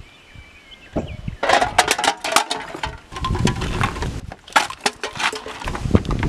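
Pickup truck door opening and a man climbing out of the cab: a knock about a second in, then a run of irregular clicks, knocks and clothing rustle. Birds chirp faintly at first.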